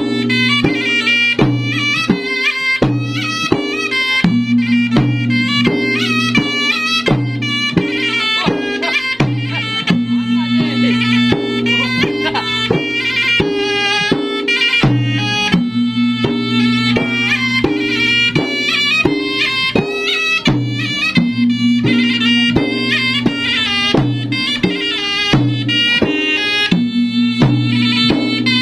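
Traditional Bugis-Makassar gendang drums played in fast, dense rhythm, with a reedy wind instrument playing a stepping melody over them.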